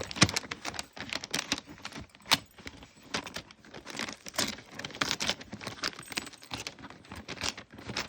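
Wrapping paper on a Christmas present rustling and crinkling as a dog works at it, in many quick, irregular clicks and rattles.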